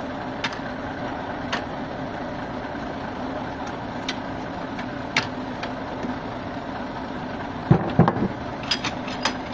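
An engine running steadily at idle, with scattered light clicks and a short cluster of loud knocks about eight seconds in.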